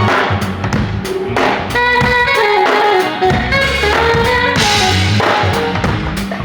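A band playing, led by a drum kit with kick drum, snare and rimshots, over sustained pitched chords and a bass line.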